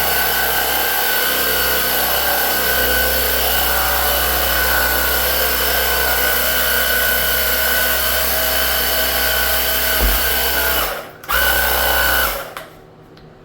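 An electric motor of a power cleaning tool running steadily with a high whine, cutting out briefly about eleven seconds in, starting again, then switching off a second later.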